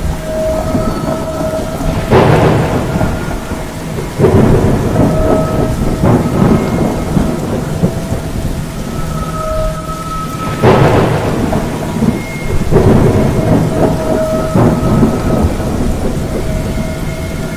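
Thunderstorm with heavy rain falling steadily, broken by repeated thunder cracks and rumbles that start suddenly and die away, the loudest about two and eleven seconds in. Faint short whistling tones come and go behind the rain.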